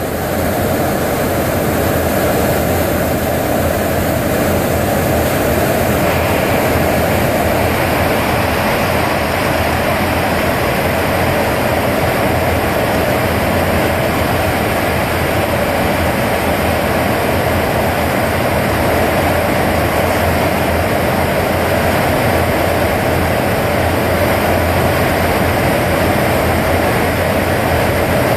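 Steady, loud cabin noise of a tanker aircraft in flight, heard inside the rear boom operator's station: jet engine drone mixed with rushing airflow.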